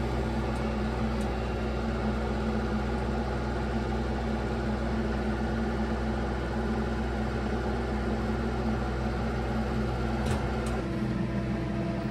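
Heavy-equipment diesel engine running at a steady speed, with its note shifting about 11 seconds in and two faint clicks just before.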